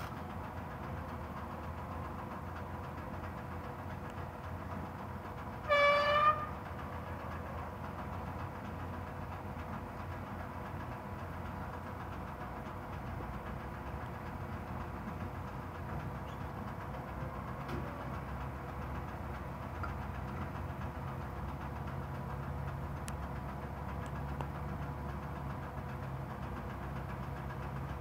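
Steady low rumble of construction machinery engines idling, with one short, loud horn blast about six seconds in. No pile-hammer strikes are heard.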